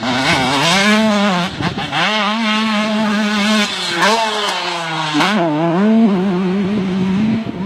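KTM 150 two-stroke motocross bike's single-cylinder engine revving hard under way, its pitch climbing and dropping back several times, with sharp dips about two seconds in and again about five seconds in.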